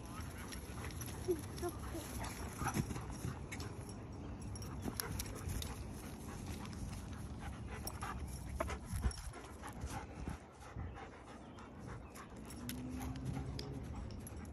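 Dogs panting while running and playing, their paws patting on the ground in quick scattered taps.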